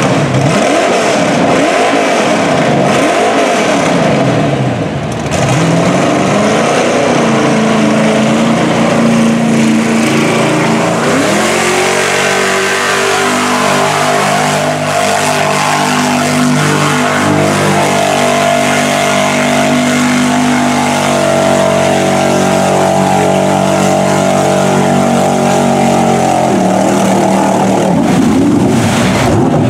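Square-body GMC pickup's engine revved hard while the truck ploughs through a deep mud hole. It blips up and down several times in the first few seconds, then about a third of the way in climbs sharply to high revs and holds there steadily for about fifteen seconds as the tires spin in the mud. Then it drops off and revs again near the end as the truck bogs down.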